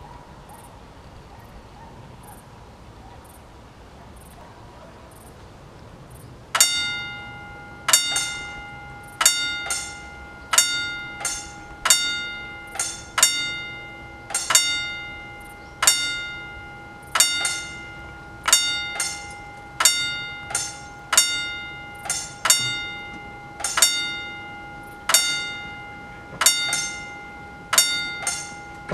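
Railway level crossing warning bell, starting about six seconds in and striking one ringing note roughly every 1.3 seconds, each strike dying away before the next: the crossing's warning that a train is coming and the road is closing.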